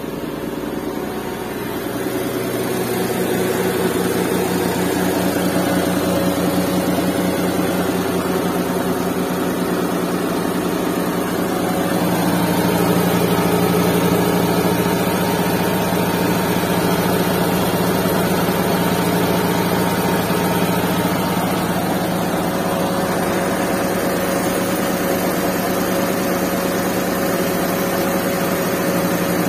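A Suzuki K6A 660cc three-cylinder engine, swapped into a Suzuki Mehran, idling steadily soon after a cold start. It runs smoothly, with no vibration: a glass of water stands on it undisturbed. The sound swells slightly about twelve seconds in.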